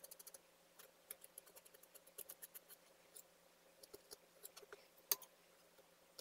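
Faint scraping and clicking of a metal palette knife on a palette board as it works tinted decorative plaster, with a quick run of small ticks at the start and one sharper tap about five seconds in.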